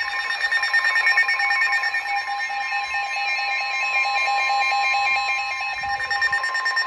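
Weather radio sounding an emergency alert tone: a steady, loud electronic alarm of several held pitches, with a rapidly alternating beep over it, announcing an incoming severe thunderstorm warning.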